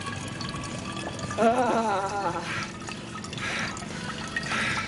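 A stream of urine running into an empty glass beer bottle, with a man's brief pleased vocal sound of relief about a second and a half in and breathy laughing after it.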